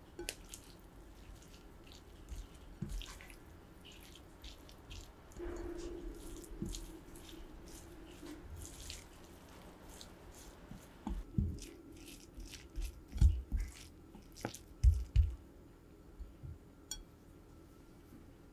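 A silicone spoon stirring and mashing rice with kimchi in a glass bowl: wet squishing and soft clicks of the spoon against the glass. A few louder dull thumps come about two-thirds of the way through.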